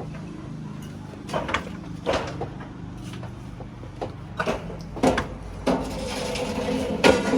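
Irregular knocks and clunks over a low steady hum. A steady drone comes in a little past the middle and the sound grows louder toward the end.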